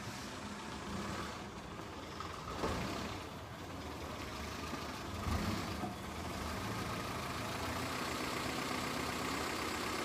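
An older Honda sedan's engine running at low revs as the car rolls in slowly and idles, a steady hum with small swells.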